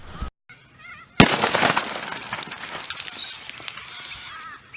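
A single sharp, loud bang about a second in, trailing off into a long fading rush, with birds calling faintly in the background.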